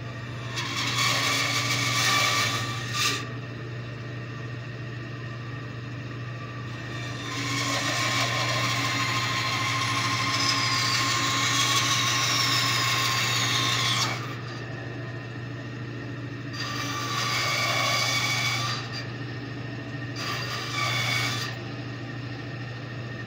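Bandsaw running steadily with a low motor hum, cutting into a small wooden carving blank four times: a short cut about a second in, a long cut of about seven seconds through the middle, and two shorter cuts near the end. Each cut is louder, with a rasping hiss over the hum, and a high whine falls in pitch late in the long cut.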